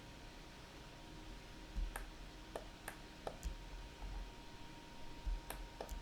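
Scattered clicks of a computer mouse and keyboard, about half a dozen sharp single clicks at irregular intervals, most of them between two and four seconds in and a couple more near the end, over a faint steady background hiss.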